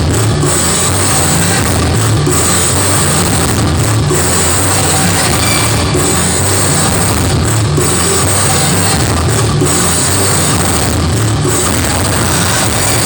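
Loud music with a driving drum beat and heavy bass, played without a break over a sonidero sound system.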